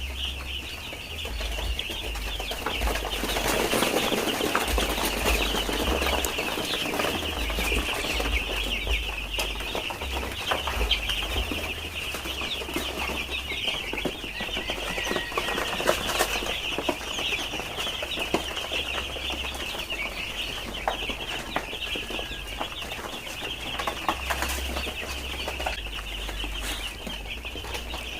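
A flock of about three hundred five-day-old broiler chicks peeping continuously in a dense high-pitched chorus, with a low rumble underneath.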